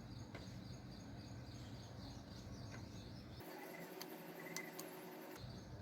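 Quiet background: faint short high chirps and a few soft clicks over a low hum, which drops away a little past halfway.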